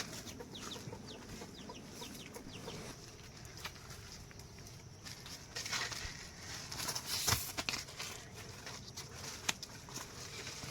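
Chickens clucking, with a string of short, high, falling chirps in the first few seconds and a couple of sharp knocks later on.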